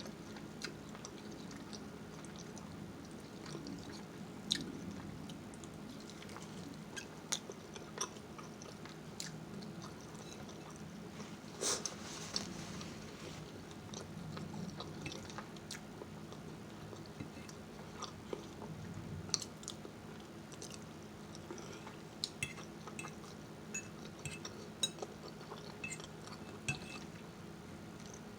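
Close-miked chewing and mouth sounds of someone eating rotisserie chicken and Cajun fettuccini, with scattered sharp clicks and smacks over a steady low room hum.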